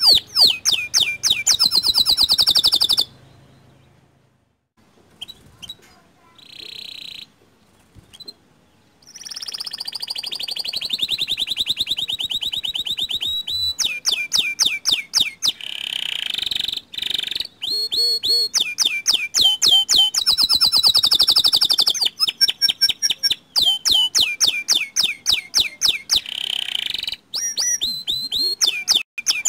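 Small local domestic canary singing fast rolling trills and chirps. It breaks off for about six seconds shortly after the start, with only a few faint notes, then sings long runs of rapid trills.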